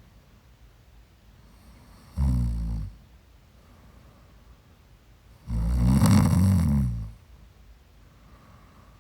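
A woman snoring in her sleep: a short snore about two seconds in, then a longer, louder one about halfway through, with quiet breathing between.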